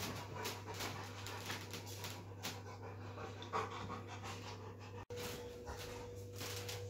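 Newfoundland dog panting hard in first-stage labour, short quick breaths at about two a second. The sound breaks off briefly about five seconds in, then the panting goes on.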